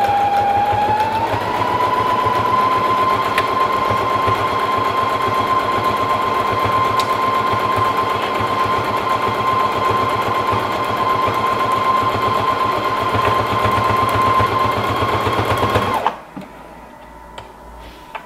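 Computerised sewing machine stitching through fabric at speed: a steady motor whine with a fast, even stitch rhythm, climbing slightly in pitch over the first second or so as it reaches full speed. It stops abruptly about two seconds before the end, followed by a few faint clicks.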